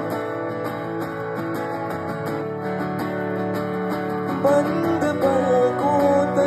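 Acoustic guitar strummed and picked in a slow, steady pattern, played live through a PA, with a sung vocal line coming back in about four and a half seconds in.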